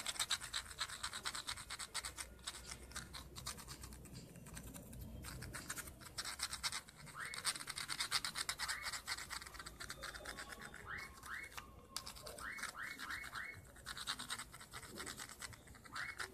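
Pencil lead scribbling rapidly back and forth over the button contact pads of a TV remote's circuit board, a fast dry scratching. The graphite is being rubbed onto the contacts to make non-working buttons conduct again.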